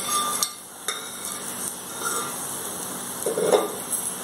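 Sunsuniya greens and mashed moong dal sizzling steadily in an aluminium kadai over a gas flame. A couple of short clicks come in the first second, and a brief louder stir of the steel ladle comes about three and a half seconds in.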